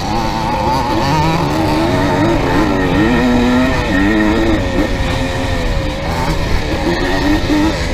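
Dirt bike engine revving up and down with the throttle, its pitch rising and falling repeatedly as the bike is ridden over an off-road course.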